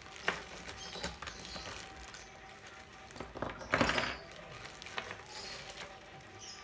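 Clear plastic bags rustling and crinkling, with small plastic camera mounts clicking against each other and the table as they are handled. The loudest rustle comes about four seconds in.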